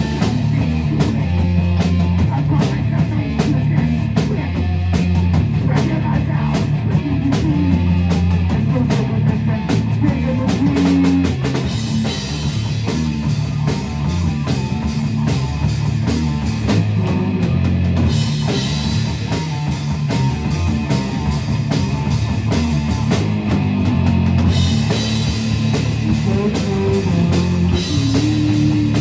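Live rock band playing a very heavy song: two electric guitars, bass guitar and a drum kit, loud and continuous.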